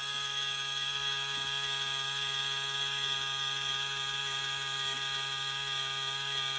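Sandcrawler Droid Factory playset's suction tube running as it draws an R2-D2 figure up into the crawler: a steady humming whir with a hiss over it.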